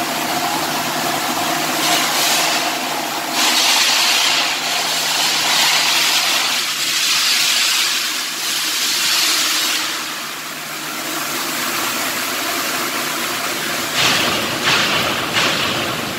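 Stick (SMAW) welding arc crackling and hissing in long runs, dropping back for a few seconds and then flaring in short bursts near the end, over a steady low machine hum.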